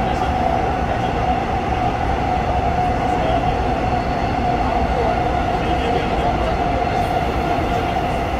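An electric subway train running on the track, heard from inside the passenger car: a steady rumble of wheels and rails with a steady mid-pitched whine over it.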